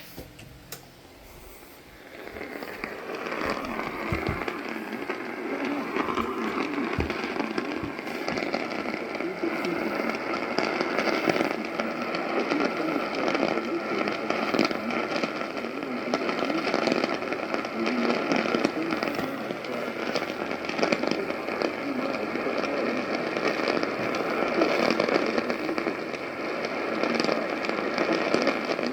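AM radio tuned to a weak distant station: hiss and crackling static that comes up about two seconds in, with faint steady tones under the noise.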